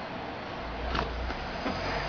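A few soft scrapes and taps of a kitten pawing at a cardboard shoebox from inside, over a low rumble that starts about half a second in.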